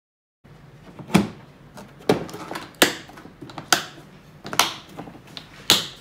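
Hard plastic caliper carrying case being closed and handled: six sharp plastic clicks and knocks, about a second apart.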